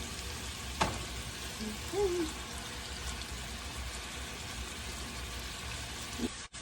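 Chicken pieces sizzling as they sear in hot oil and butter in a skillet: a steady frying hiss, with one sharp click about a second in.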